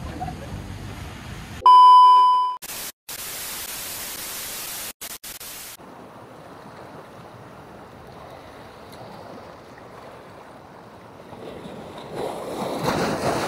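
A loud steady beep lasting about a second, followed by about three seconds of hissing static that cuts out several times. Then faint sea and wind noise on the rocky shore, with the surf growing louder near the end.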